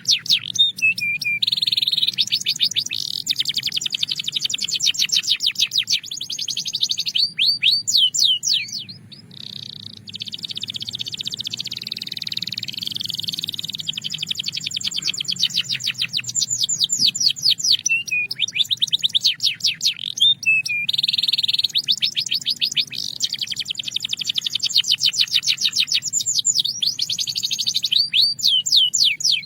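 Belgian canary singing a long song of fast trills and rolls, strings of rapidly repeated high notes, some sweeping downward, with a brief break about nine seconds in.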